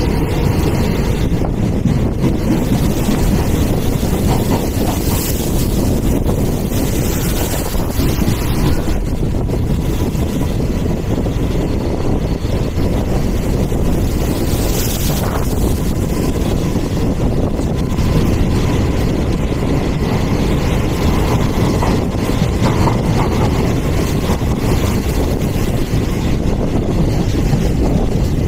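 Steady rush of wind buffeting the microphone over the running noise of a moving passenger train, filmed from the side of a coach.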